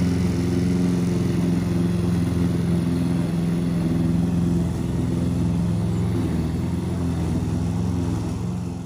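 An engine or motor running steadily: a low, even drone with several held tones.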